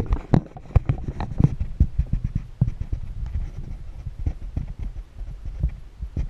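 Camera handling noise: irregular knocks, bumps and rubbing on the microphone of a camera being moved and set down, over a low rumble, the knocks thinning out after the first second or two.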